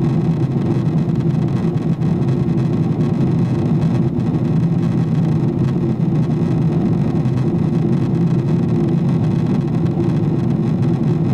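Boeing 777-300ER cabin noise in flight, heard beside the wing: the steady low drone of airflow and its GE90 turbofan engines, with a constant hum running through it.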